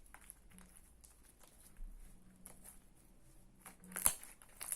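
Hands kneading and mixing clear slime on a table: faint sticky squishing with scattered small clicks, and one sharper click about four seconds in.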